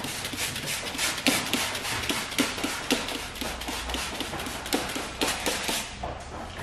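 Hand-held trigger spray bottle pumped rapidly, about three squirts a second, each a short hiss of mist onto the protection film and bumper. The spraying stops about six seconds in.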